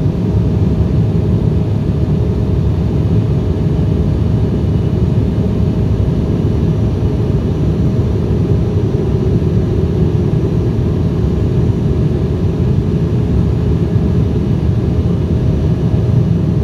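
Steady cabin noise of an Embraer 175 in flight shortly after take-off, heard inside the cabin at a window seat beside the wing: the low, even drone of its GE CF34-8E turbofan engines and the rushing airflow, with a faint steady tone above it.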